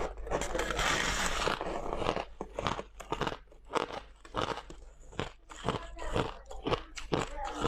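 Crushed white ice being bitten and chewed: one long dense crunch over the first second and a half, then a run of sharp, irregular crunches.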